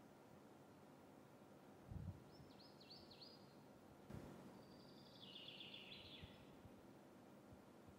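Near silence with faint bird chirps over low room hiss. A few quick falling chirps come about two seconds in, and a longer trill follows around five seconds in. A soft thump comes just before the first chirps.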